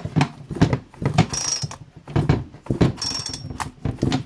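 Recoil starter of a Talon chainsaw pulled several times in quick succession, the cord rasping out and the starter pawls clicking as the engine is turned over against its compression without firing.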